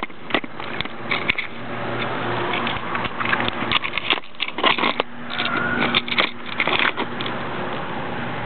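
Black-throated monitor lizard crushing a large rat in its jaws: irregular crunching clicks and crackles with some scraping, thickest in the middle, over a steady low hum.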